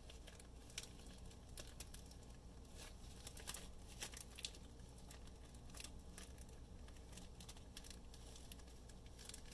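Faint crinkling and rustling of a plastic zip-top bag handled in nitrile-gloved hands, with scattered soft clicks, as it is twisted and pressed down on a pan of loose eyeshadow powder.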